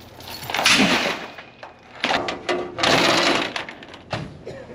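Metal tie-down chain rattling and clanking in two bursts as it is thrown over and pulled across a trailer load to bind it down, with a few sharp clinks between.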